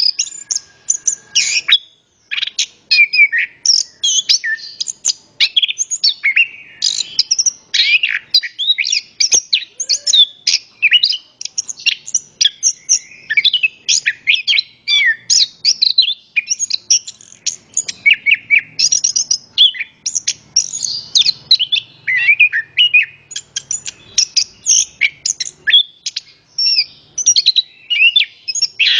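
Chestnut-capped thrush in full song: a long, rapid, varied run of high chirps, trills and whistles with barely a break, pausing briefly about two seconds in.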